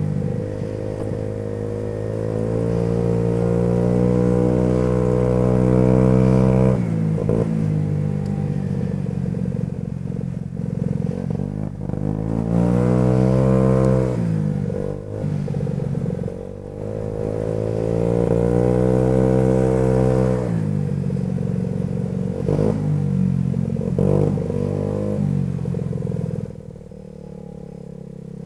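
2006 Baotian BT50QT-9D scooter's 50 cc four-stroke 139QMB engine running under way. Its pitch rises as it accelerates and falls as it eases off several times, then it drops to a low idle near the end.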